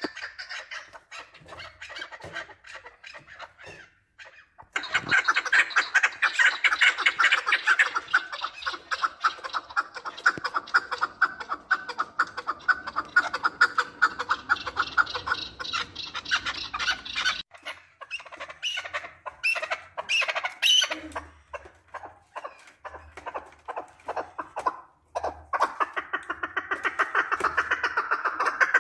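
Chukar partridges calling in long runs of rapid, repeated short clucking notes. A dense run cuts off abruptly about two-thirds of the way through, scattered notes follow, and another fast run builds near the end.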